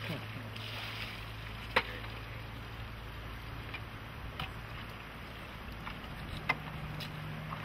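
River water flowing steadily with wind on the microphone, broken by a few sharp knocks.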